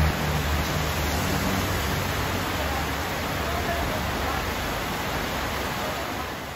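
A steady rushing noise, with a low hum that weakens over the first second or two.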